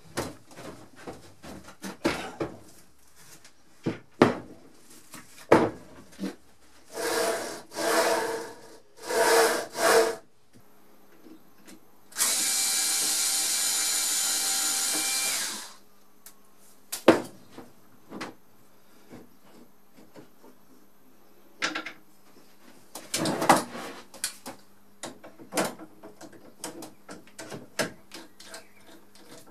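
A cordless screwdriver motor runs steadily for about three and a half seconds, with shorter runs a few seconds before. Metal parts and tools knock and clatter on a wooden workbench throughout.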